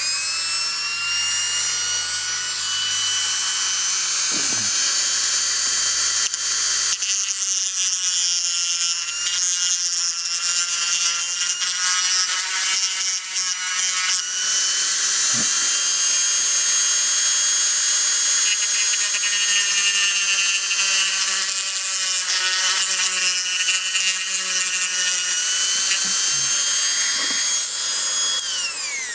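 Dremel rotary tool running at a steady high whine, trimming the small diecast car so the new wheels clear. Its pitch wavers slightly under load and winds down near the end.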